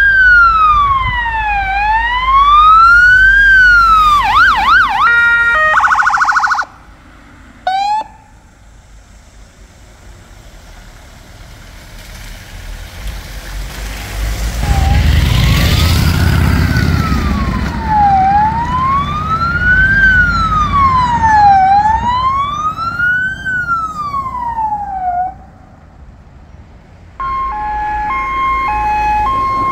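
Emergency vehicle sirens on passing vehicles. A wail rises and falls about every two seconds, switching briefly to a fast yelp and a rapid pulsing tone before cutting off. After a stretch of quieter road noise, a vehicle passes close with a loud rush of engine and tyre noise under another wailing siren, and near the end a two-tone hi-lo siren begins.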